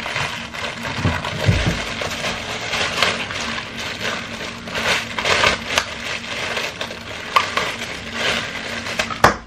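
Plastic packaging bag crinkling and rustling in irregular bursts as a hair straightening brush and its cord are unwrapped, with a few small clicks and a sharper click near the end.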